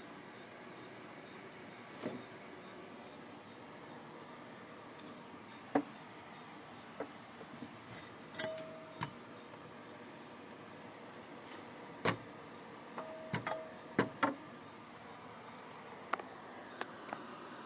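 A cricket trilling: a steady, high, finely pulsed chirp that does not stop. Scattered clicks and knocks sound over it, the loudest about six, twelve and fourteen seconds in.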